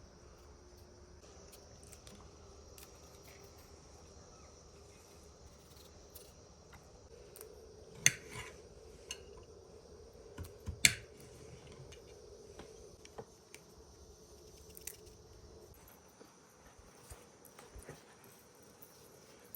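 Insects, crickets by their sound, chirping faintly and steadily, with a few scattered sharp clicks and knocks. The loudest knock comes about eight seconds in and another about three seconds later.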